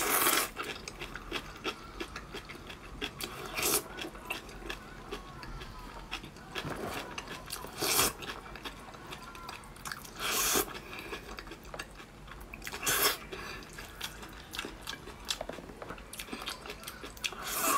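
Close-up eating sounds of spicy kimchi fire-chicken instant noodles: about six loud slurps a few seconds apart as mouthfuls of noodles are sucked in, with wet chewing between them.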